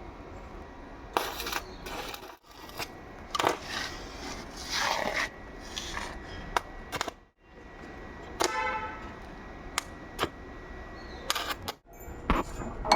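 Metal clicking, knocking and scraping from hand work on a steel gate lock, with a brief metallic ring about eight and a half seconds in.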